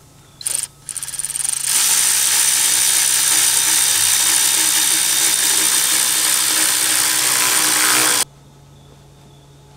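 Cordless electric ratchet giving two short blips, then running steadily for about six seconds as it drives a fastener on the turbocharger, cutting off abruptly about eight seconds in.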